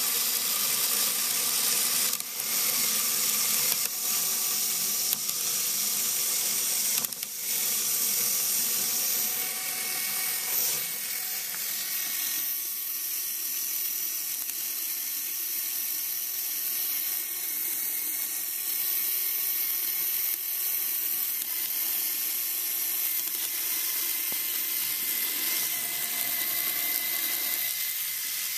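Lego Power Functions medium motor driving a Lego Technic 4-speed manual gearbox through a rubber belt, running in fourth gear: a steady high whir of the motor with the plastic gears meshing. Two brief clicks come in the first several seconds, and the whir is a little quieter from about eleven seconds on.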